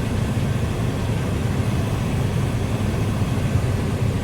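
Combine harvester running steadily while harvesting wheat: an even, low drone of engine and threshing machinery.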